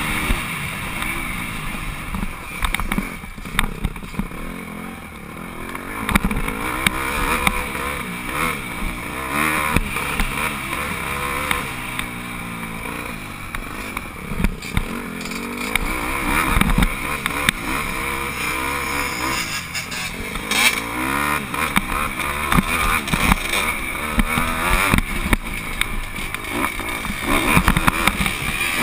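Motocross bike engine revving up and down as it is ridden hard round a dirt track, with sharp knocks here and there.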